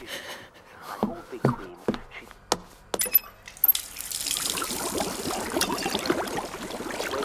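A few clicks and short mumbled sounds, then a tap turned on about three seconds in and water running steadily from it into a sink.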